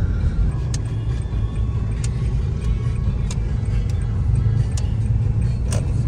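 Inside a moving car's cabin: the steady low rumble of the car driving along a paved road, with a few faint clicks.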